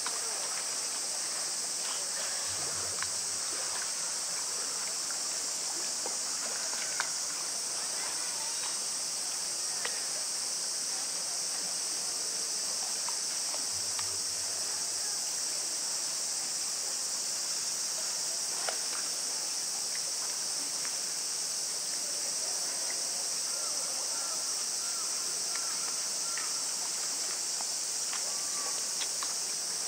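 Steady high-pitched drone of insects over a faint trickle of pool water, with a couple of soft clicks about seven seconds in and again near nineteen seconds.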